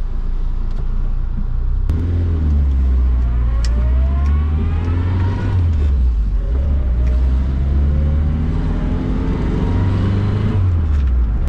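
MG Midget's four-cylinder engine accelerating, heard from inside the cabin: the revs climb, fall back about halfway through, then climb again and fall back near the end.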